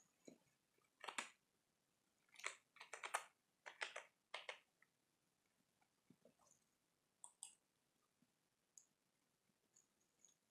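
Computer keyboard keys tapped in a short run of about ten quiet clicks as a word is typed, then two quick clicks a few seconds later, typical of a mouse button.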